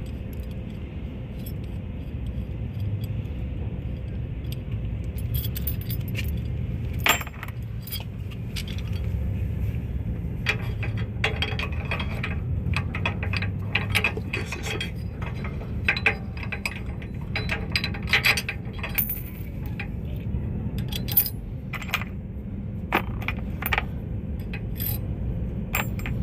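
Metal hitch parts clinking and clanking as an anti-wobble clamp is fitted onto a hitch receiver and shank: scattered sharp metallic clicks and scrapes, thickest in the second half, over a steady low rumble.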